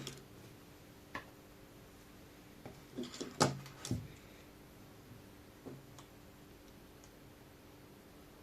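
A few light clicks and taps of small hand tools and metal parts being handled on a table, with a short cluster of them about three to four seconds in and single ticks later, over a faint steady hum.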